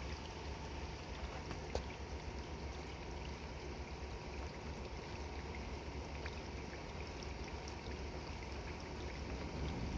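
Steady rain falling during a thunderstorm, an even hiss with scattered drop ticks over a steady low rumble.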